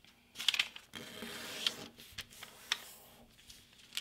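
Thin kami origami paper rustling and crinkling as a square sheet is folded edge to edge and creased flat by hand, with a few short sharp crackles.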